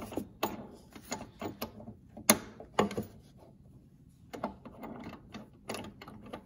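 Hold-down clamp on a CNC router's T-track bed being slid into place and tightened against an MDF board: a string of irregular clicks and knocks, the loudest a little over two seconds in.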